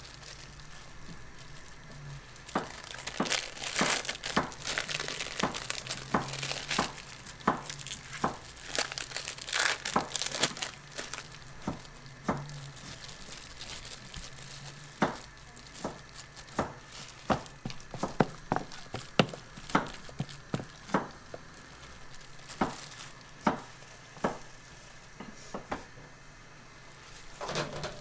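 Disposable plastic gloves and foil crinkling as gimbap fillings are picked up and laid on the seaweed. The crinkling is thickest early on, then gives way to a string of separate sharp little clicks and taps.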